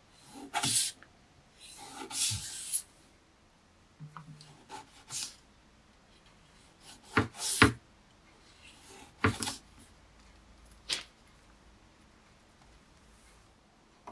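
Kitchen knife slicing cherry tomatoes on a cutting board: short, separate cuts with pauses between them.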